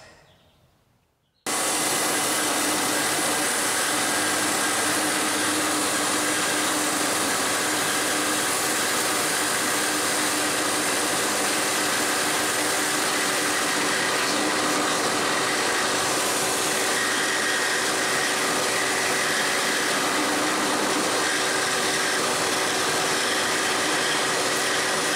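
Drill press fitted with a router bit, routing out the inside of an MDF blank, with a dust-collection vacuum hose drawing off the dust at the cut: a loud steady whir that cuts in suddenly about a second and a half in.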